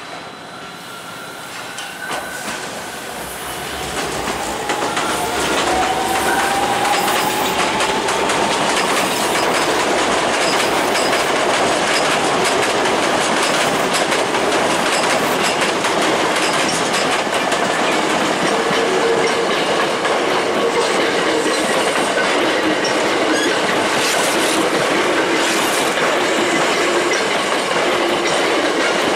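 Electric commuter trains passing close by, an Osaka Metro 66 series and then a Hankyu 5300 series, wheels clattering over the rail joints. The sound builds over the first few seconds with a rising whine as the first train approaches, then holds at a steady loud level while the cars run past.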